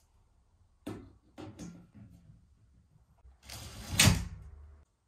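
A few light knocks, then a louder rattling clatter with a sharp bang about four seconds in, like parts or a panel being handled, cut off abruptly.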